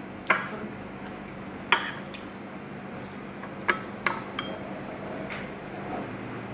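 Metal spoon clinking against a plate and an opened tin can, about six sharp, uneven clinks, the loudest a little under two seconds in.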